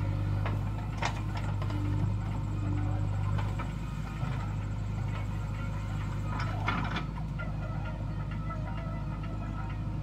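JCB 3DX backhoe loader's diesel engine running steadily as the backhoe arm swings. Sharp knocks sound about a second in and again near seven seconds.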